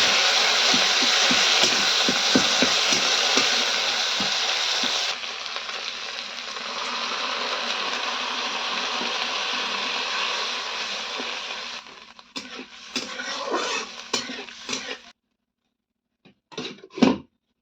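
Food sizzling in a hot pan while a spatula stirs and knocks against it. The sizzle drops about five seconds in and stops after about twelve seconds, followed by a few scattered scrapes and one brief clatter near the end.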